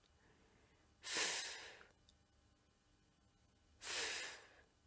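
A woman voicing the letter sound /f/ twice, each a breathy 'fff' hiss of under a second, the second starting about three seconds after the first.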